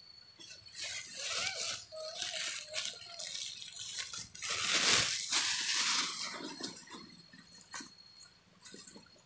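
Plastic bag crinkling and rustling as a young macaque paws and tugs at it, loudest about five seconds in, then dying down.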